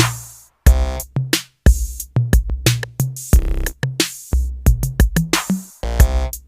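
Background music: electronic track with a drum machine beat, deep bass hits and synth chords.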